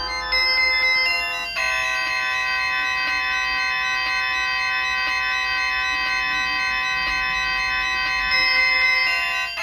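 Entel ringtone playing through a Kioto E1 mobile phone's speaker: held electronic organ-like chords that change a few times.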